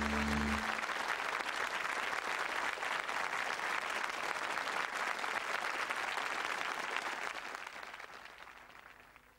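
Studio audience applauding, dying away over the last two seconds. A held music chord ends under it about half a second in.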